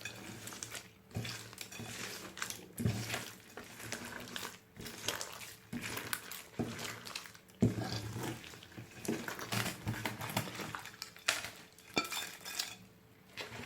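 Slime being mixed and squished: irregular sticky squelches with small crackling pops and clicks, several a second, rising and falling in bursts.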